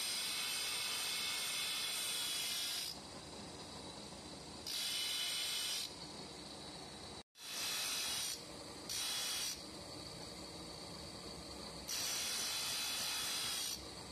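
Abrasive cut-off disc on a motor-driven spindle grinding grooves into a steel vise jaw. There are five bursts of high, hissing grinding as the disc bites into the metal, with the spinning machine running more quietly between them.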